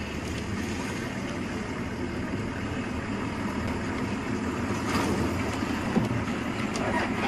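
A vehicle engine idling: a steady low rumble.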